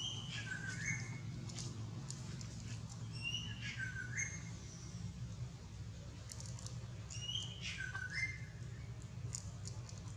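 A bird whistling the same short phrase three times, about four seconds apart: a high note that drops and then lifts a little at the end. A steady low hum runs underneath.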